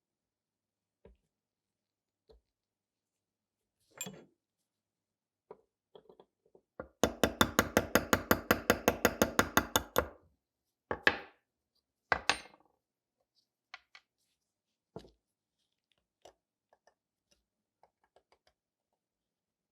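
Hand work on metal pistol parts at a bench: scattered clinks and taps, with a quick run of about twenty sharp strokes, roughly seven a second, for about three seconds near the middle, followed by a few louder single knocks.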